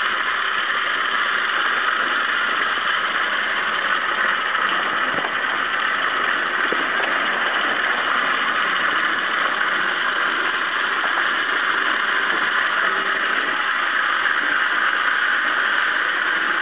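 Electric drive motor and drivetrain of a small converted garden-tractor snowplow running as it drives, a steady even whirr that holds unchanged throughout.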